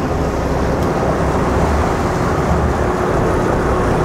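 Boat motor running steadily with a low rumble, a faint steady hum coming in partway through.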